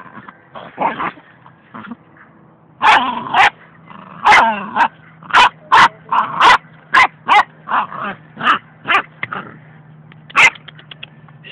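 A dog barking in short, sharp yips, a few spaced out at first, then a quick run of about two a second, and a last one near the end.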